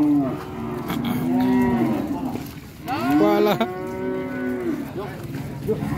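Cattle mooing, several calls one after another, each bending up and down in pitch; the loudest call comes about three seconds in.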